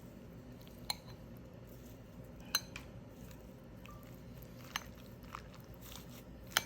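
Four light, sharp clicks a second or two apart over a low steady hum.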